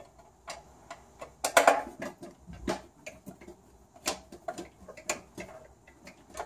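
Screwdriver working a screw loose inside the sheet-metal frame of a Rancilio Silvia espresso machine: scattered metallic clicks and clinks, with a louder cluster of them about one and a half seconds in.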